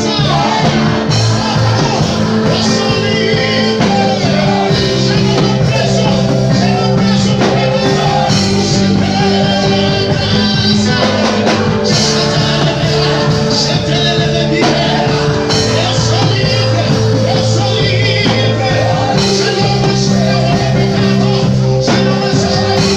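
Rock-style music with singing.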